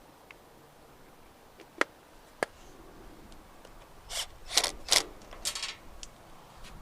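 Handling noises from closing up a trailer wiring junction box: two sharp clicks about two seconds in, then a flurry of short scraping and rubbing sounds a little later.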